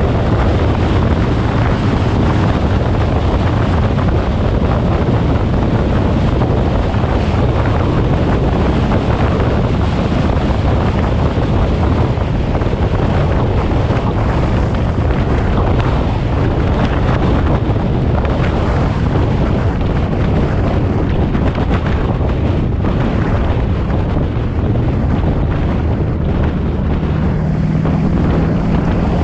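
Heavy wind buffeting on the microphone over a steady low drone from a car, with no revving heard. A faint steady hum comes in near the end.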